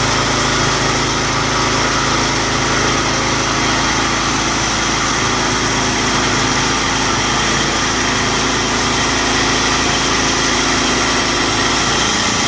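Wood saw machine running steadily, with a constant pitch and no change in load.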